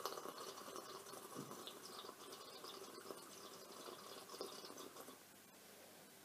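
Faint sipping of a drink from a mug, with small wet liquid sounds.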